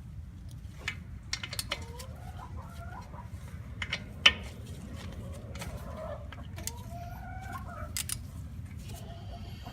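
Chickens clucking in short, wavering calls, with scattered sharp clicks, the loudest about four seconds in, over a steady low hum.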